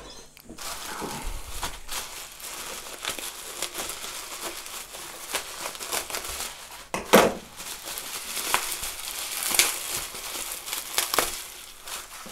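Plastic bubble wrap being crinkled, cut with scissors and pulled off: continuous crackling and rustling dotted with sharp clicks, the loudest crack about seven seconds in.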